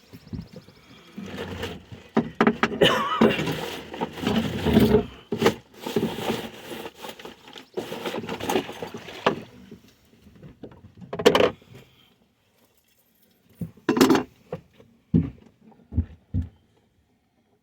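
Irregular scraping, rustling and clicking of hands working at a fish and fishing tackle to free a deeply set hook. About halfway through comes one sharp knock, and a few more knocks follow near the end.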